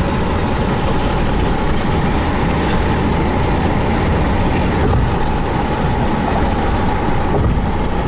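Steady road and engine noise of a car driving at highway speed, heard from inside the cabin, with a constant mid-pitched tone running through it.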